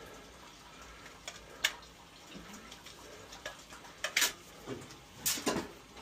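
Small clicks and knocks of a gloved hand working at a steam boiler's low-water cutoff control box, reconnecting its probe wire. The louder ones come about one and a half, four and five and a half seconds in.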